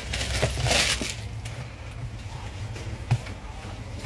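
Suit fabric swishing and rustling as folded suits are pulled off and laid on the counter, loudest about half a second in. There is one sharp tap about three seconds in, over a low steady hum.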